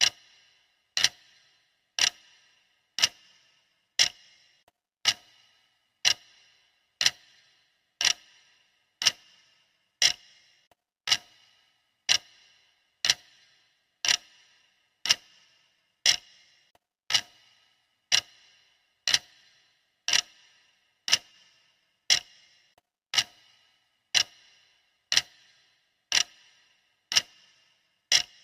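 Sharp clock ticking sound effect, one tick a second, steady and even; each tick is a short click with a brief ring.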